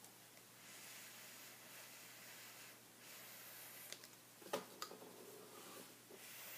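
Faint breath blown through a drinking straw onto wet acrylic paint, heard as a soft hiss in about three long puffs. A couple of small clicks come about two-thirds of the way in.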